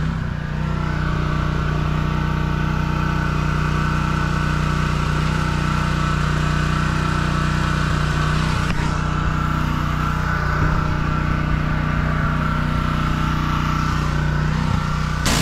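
Small gas pressure-washer engine running steadily at an even pitch, with no water spraying. The hiss of the spray cuts back in at the very end.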